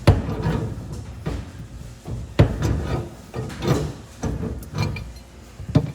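Several sharp knocks with rubbing and scraping between them, from work on a gas stove's pipe fittings as they are taken off.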